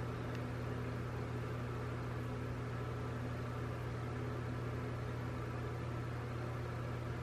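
Steady low hum with a faint even hiss: room tone, with no distinct sounds from the handwork.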